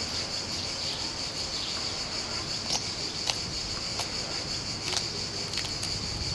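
A steady, high-pitched chorus of insects, with a few soft clicks from broadleaf plantain leaves being torn by hand over a bowl.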